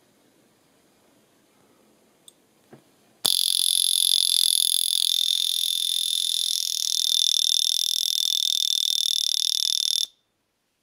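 Vulcain Cricket calibre 120 wrist alarm (a Challfont Medalist) going off: its alarm hammer rapidly strikes the stainless steel pin in the double caseback, giving a loud, shrill, rapidly pulsing buzz. It starts suddenly about three seconds in, runs about seven seconds and stops abruptly.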